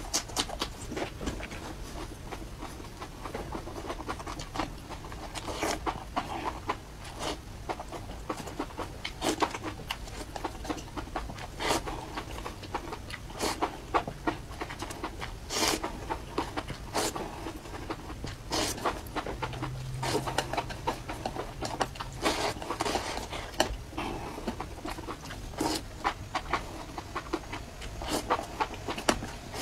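A person eating close to the microphone: wet chewing and slurping of a spicy chilli-and-garlic dish, with breaths drawn in between mouthfuls. Many sharp mouth clicks come at irregular intervals.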